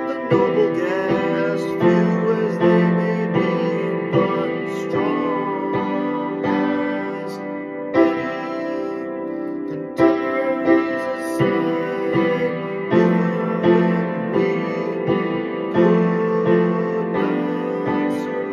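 A man singing a simple melody over a basic piano chord progression, chords struck about every two seconds: a first, improvised song sketch.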